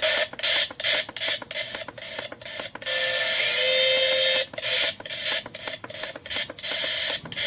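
Toy alarm clock radio's small speaker playing a poorly received FM station: music garbled by static, broken by rapid crackles and brief dropouts about four times a second, with a steadier stretch of tone a little past the middle.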